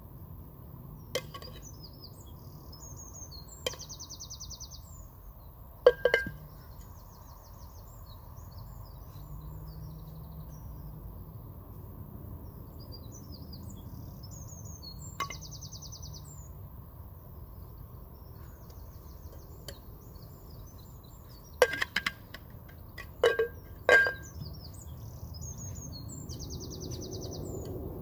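Metal shaker tin and plastic flair practice bottle clinking and knocking as they are caught in flair bartending: a few sharp clinks spread apart, then a quick cluster of them near the end. Birds sing high, repeated trills in the background over a steady outdoor hum.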